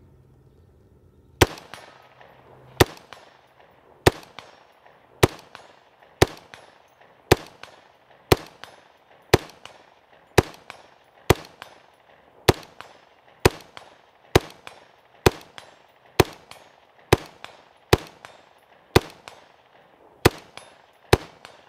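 LMT MARS-L 5.56 mm rifle firing single shots in semi-automatic, about twenty shots spaced roughly one per second, each a sharp crack with a short echoing tail.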